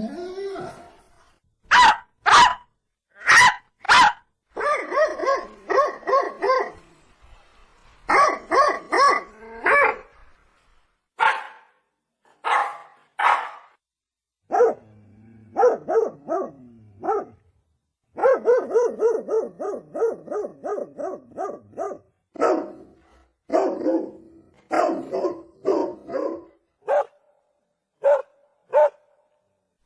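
Dogs barking: single barks and quick runs of barks, with short pauses between them.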